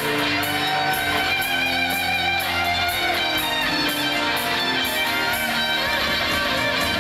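Live rock band playing a slow ballad: an electric guitar lead line with wavering, bending notes over sustained organ chords, bass and drums.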